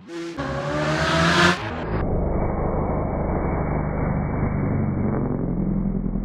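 Superbike racing along the road at full throttle, its engine note climbing steeply for about a second and a half. About two seconds in it gives way abruptly to a muffled, steady low drone.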